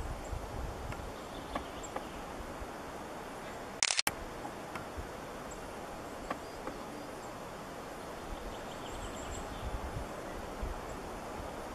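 Quiet forest ambience: a steady hiss with a low rumble, and a few faint, very high, short bird calls. About four seconds in comes a brief loud burst of noise that cuts off abruptly.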